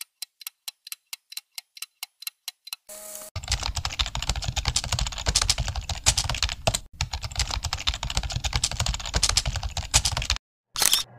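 Computer keyboard typing sound effect. For about the first three seconds it gives single key clicks at about five a second, then it turns into rapid, continuous typing that is louder and denser, and this stops shortly before the end.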